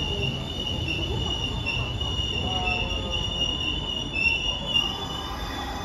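Hanshin 8000 series electric train pulling into the platform, its wheels squealing with a steady high-pitched tone over a low rumble as it brakes. The squeal stops about five seconds in, with two knocks just before, as the train comes to a halt.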